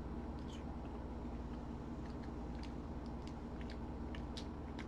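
Soft chewing of gummy candy: faint scattered wet mouth clicks over a steady low hum.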